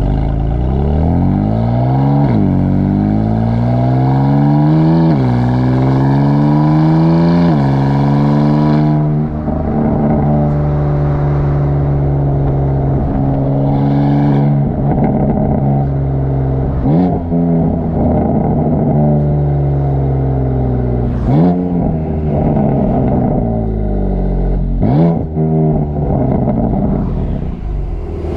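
BMW F82 M4's twin-turbo straight-six exhaust pulling hard through three upshifts, its pitch climbing and dropping back at each shift. It then settles to a steady cruise, broken in the second half by several quick rev blips with sharp exhaust pops and crackles.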